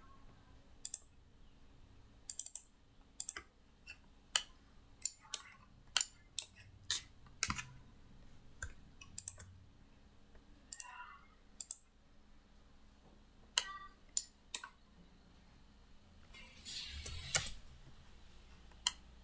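Computer mouse and keyboard clicks: single sharp clicks at irregular intervals, roughly one a second, with a brief soft noise near the end.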